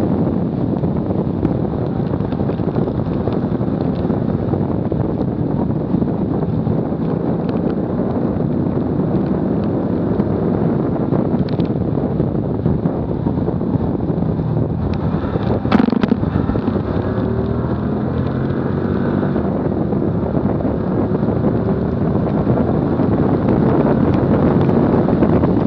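Heavy wind rushing over a bumper-mounted camera's microphone at high track speed, mixed with road and tyre roar. The car's engine is faintly heard beneath it, its pitch climbing in the middle stretch. One sharp knock comes about two-thirds of the way through.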